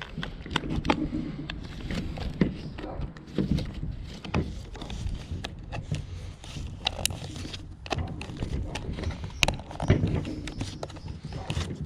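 Irregular clicks and knocks of hands fitting plastic trim parts and wiring connectors into a steering wheel, with low rustling handling noise between them.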